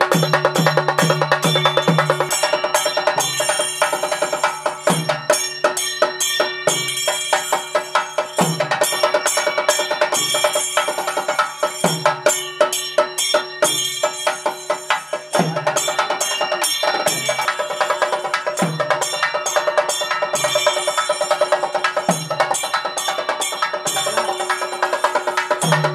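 Traditional temple percussion music: fast, dense high strokes over repeated low pitched drum beats, with a steady held tone underneath.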